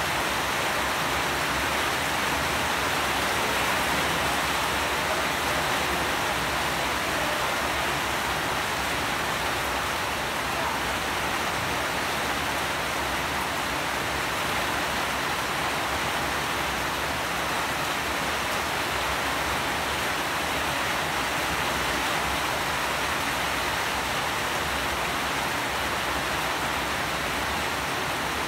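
Steady rain falling, an even dense hiss that holds level without distinct drops or changes.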